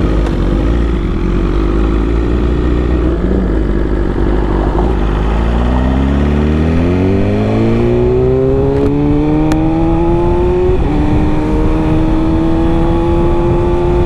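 Inline-four sportbike engine pulling away: a low steady rumble at first, then the engine note climbs for several seconds, drops suddenly at an upshift about eleven seconds in, and climbs again through the next gear.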